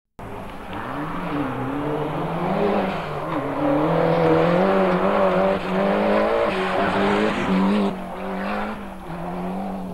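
Rally car engine at full throttle as the car approaches on a dirt stage, its pitch climbing and dipping through gear changes. It grows louder, then drops off sharply near the end as the car passes.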